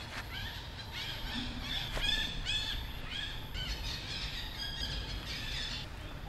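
A monkey giving a run of short, high-pitched calls, each rising and falling in pitch, several a second, loudest about two seconds in.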